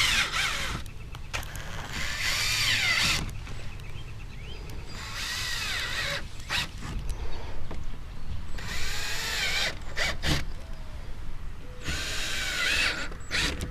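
Electric drill boring holes through a plastic bumper cover in short runs, about five separate bursts a second or two apart. In each burst the motor whine rises and falls as the bit goes through the soft plastic easily.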